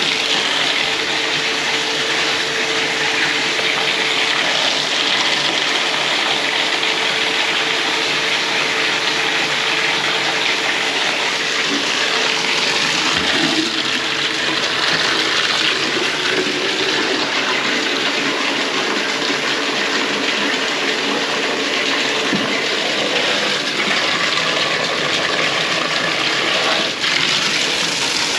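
Water running in a steady, unbroken rush, with a constant hum beneath it.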